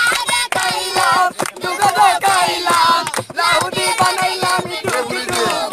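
Two young girls singing together unaccompanied, with hand claps keeping time.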